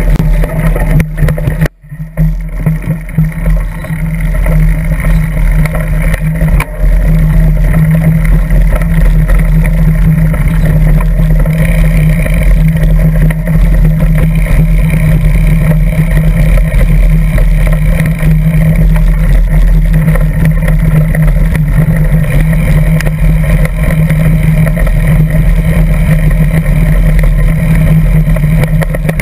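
Mountain bike riding over bumpy grass, picked up by a GoPro Hero 2 clamped to the seat post: a loud, steady rumble of wind and frame vibration on the camera. The sound cuts out briefly about two seconds in.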